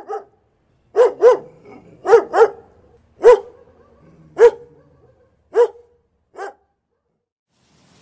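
Dog barking: about nine short barks, some in quick pairs.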